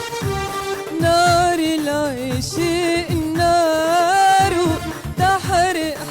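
A woman singing an Arabic song with a wavering, ornamented melody over instrumental accompaniment with a steady low beat.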